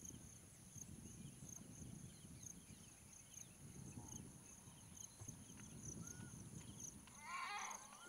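Faint outdoor nature ambience: a steady high insect drone pulsing a few times a second, with scattered short bird chirps and one louder, warbling call about seven seconds in.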